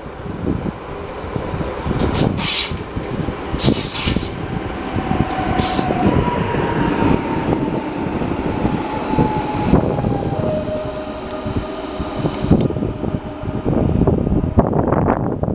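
PKP Intercity ED161 'Dart' electric multiple unit braking as it runs into a station: a continuous rumble of the train, short bursts of hiss in the first few seconds, and a whine that falls in pitch in steps as the train slows.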